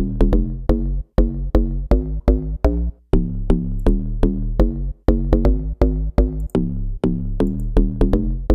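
Deep-house FM-style synth bass, made in Serum, playing a repeating one-bar pattern of short bass notes. It sits over a programmed drum beat with kick, clap and a percussion loop.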